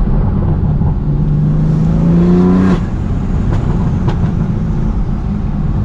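BMW F80 M3's S55 twin-turbo straight-six, fitted with resonated downpipes, a single midpipe and stock mufflers, heard from inside the cabin while driving. The revs climb for about a second and a half, then drop off abruptly a little before three seconds in, after which the engine runs steadily.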